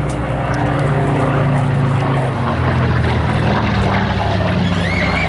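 Curtiss P-36 Hawk's radial piston engine and propeller running at display power, a steady engine drone that drops in pitch a little over two seconds in.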